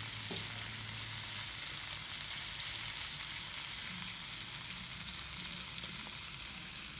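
Onion and bok choy stems sizzling steadily in a hot oiled wok as they are stir-fried, with a spatula now and then scraping against the pan.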